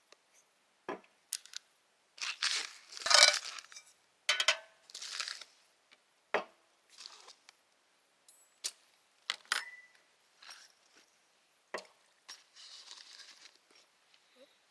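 Objects being handled: scattered sharp clinks and knocks, with louder bursts of rustling or scraping about two to four seconds in and again near the end.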